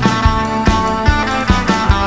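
Instrumental surf-rock music with electric guitar over a steady drum beat.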